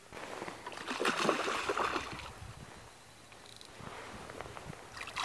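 Water splashing and sloshing at the surface as a bass is hooked and fought on a spinning rod. It comes in two bouts, the louder one a second or two in and another building near the end.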